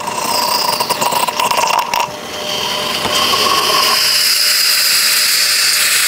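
Odyssey Argos lever espresso machine's group head hissing as the lever is worked to pull a shot and bleed air out: a rough, crackly sputter of air and hot water for about two seconds, then a smoother, steady hiss.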